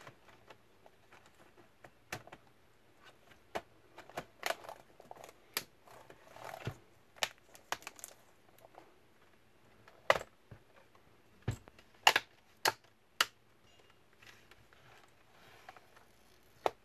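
Dell Inspiron 3521 laptop keyboard being pressed down into the palm rest, with keys clicking and the keyboard edges snapping into place. Scattered knocks come from handling the plastic laptop body, the sharpest ones about ten to thirteen seconds in.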